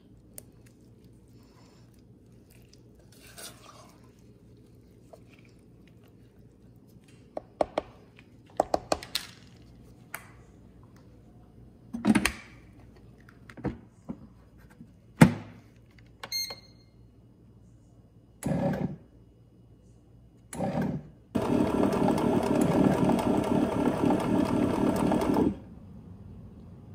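Bread machine being set up: scattered thunks and clicks of the pan, lid and utensils, a short beep from the control panel, then a motor running steadily for about four seconds near the end.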